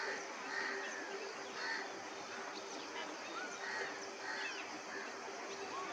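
Birds calling at the waterside: short calls repeated about once a second, with thin high chirps in between, over a faint steady hum.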